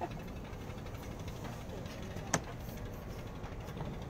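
Boat engine idling with a steady low rumble, and a single sharp click a little past two seconds in.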